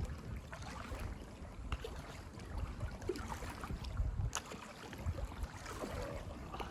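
Kayak paddle dipping and splashing in calm canal water, with wind rumbling on the microphone and one sharp knock about four seconds in.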